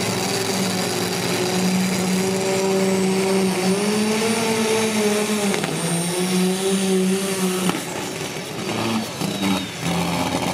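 Limited pro stock John Deere pulling tractor's diesel engine running hard at high revs under load, with a faint high whine over it. The pitch lifts slightly, then dips around six seconds in, and the engine cuts back sharply about three-quarters of the way through, leaving a rougher, uneven run.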